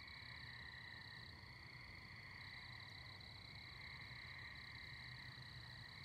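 Near silence: a faint, steady, high-pitched chorus of night insects in the grass.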